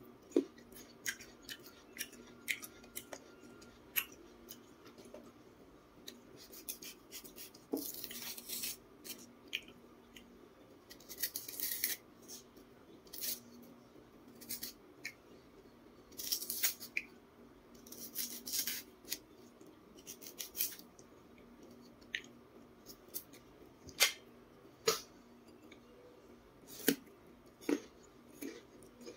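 A small knife peeling the skin off a raw jicama in short scraping strokes, between many sharp, crisp clicks from biting and chewing the crunchy flesh.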